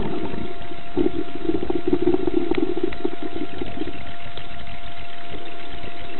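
An engine running steadily, with a stronger rumble from about one to four seconds in.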